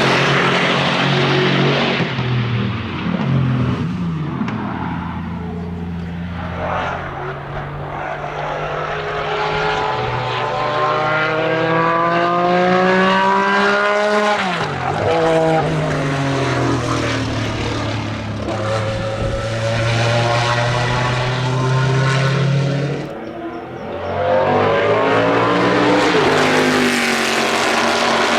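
Racing car engines at speed on a circuit: one climbs steadily in pitch under acceleration, then drops sharply about halfway through as it passes or changes gear, and another car goes by loudly near the end.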